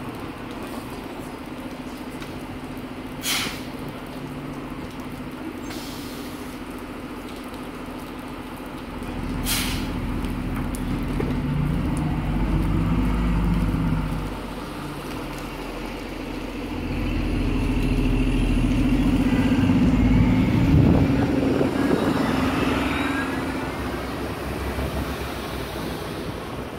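City transit bus idling at a stop, its air brakes giving two short hisses, then its engine powering up as the bus pulls away. It accelerates in two surges, with a rising whine in the second.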